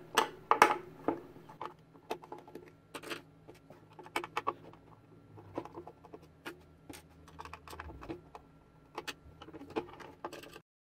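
Small screwdriver backing screws out of the plastic back of a Logitech Z200 speaker: irregular light clicks and ticks of the tool and screws against plastic.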